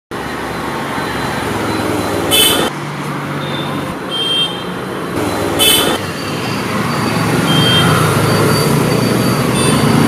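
Steady road traffic noise, with short vehicle horn beeps now and then and two brief, sharper bursts of noise about two and a half and five and a half seconds in.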